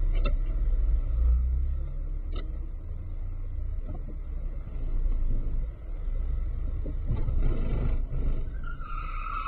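Low, steady rumble of a car driving on the road, heard from inside the vehicle, with a couple of faint clicks and a brief higher tone near the end.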